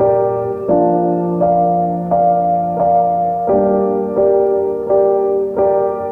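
Background piano music: slow chords struck about every 0.7 s, each note ringing on.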